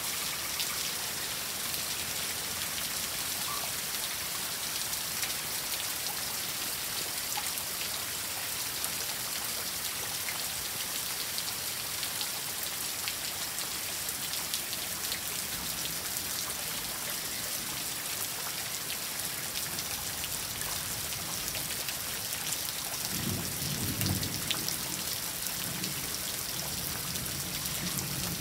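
Heavy rain falling steadily on lawn, street and plants: a continuous, even hiss of countless drops. A brief low rumble rises under it about 23 seconds in.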